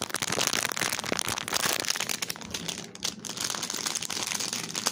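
Thin plastic bag crinkling and rustling as it is handled, a dense crackle of small clicks that thins out for a moment about halfway through.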